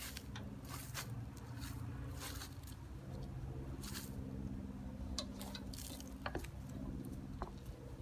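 Single-cylinder Tecumseh HH120 engine of a 1968 Sears Suburban 12 garden tractor running steadily, with scattered light clicks and rustles over it.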